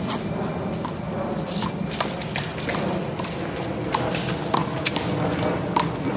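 Rubber handball struck by hand and rebounding off the wall and ground in a one-wall handball rally: a string of sharp smacks at an uneven pace, about two a second, over steady background noise.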